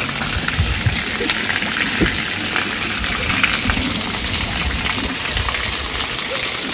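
Steady rush of gushing water, with a constant hiss, as water runs out of a water tank being drained for cleaning.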